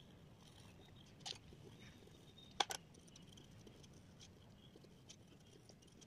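Quiet room tone with a few light clicks: one about a second in and a quick double click midway, as coloured pencils are handled and set down on a wooden table.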